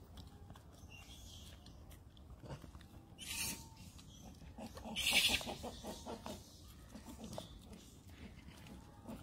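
Baby macaque eating a banana: wet chewing and lip-smacking, a quick run of small clicks for a couple of seconds in the middle. Two brief rustling hisses stand out as the loudest sounds, a third of the way in and just past halfway, as the banana peel is pulled and handled.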